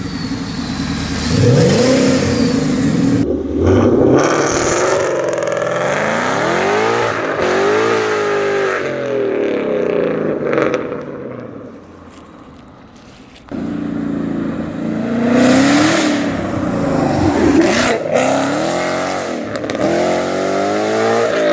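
Supercharged Ford Mustang engine with Borla mufflers and deleted catalytic converters and resonators, revved hard several times, its pitch climbing and falling with each rev. It drops quieter for a couple of seconds past the middle, then comes back loud abruptly.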